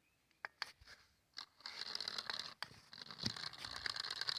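A few sharp clicks, then about a second and a half in the small electric motor of a homemade remote-control toy car starts and runs with a steady high-pitched whir, a little louder near the end.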